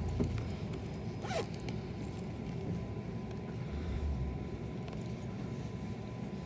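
Cabin running noise of a limited express electric train under way: a steady low rumble of wheels on the rails with scattered short clicks, a faint steady tone, and a brief falling squeak about a second and a half in.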